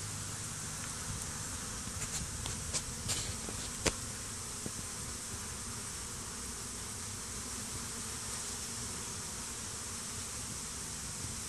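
Honey bees buzzing in a steady hum around a hive stand, with a few light clicks between about two and four seconds in.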